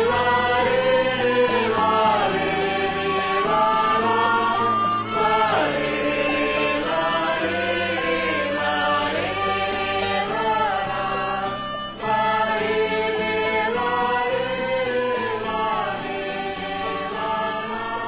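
Music: the closing of a Venezuelan-style polo song, with voices singing in a chant-like way over the accompaniment, easing slightly in level near the end.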